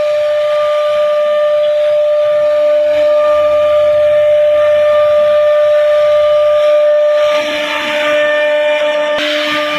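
CNC router spindle running with a steady high-pitched whine as its bit carves grooves into a wooden panel, with the hiss of the cut behind it; the sound shifts about seven seconds in.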